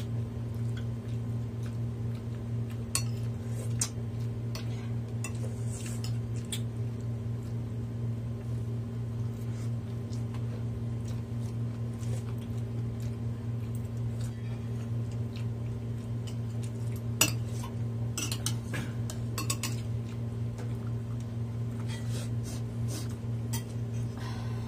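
Cutlery clinking against dishes while eating: scattered light clinks, the sharpest about two-thirds of the way in, with a cluster of them near the end, over a steady low hum.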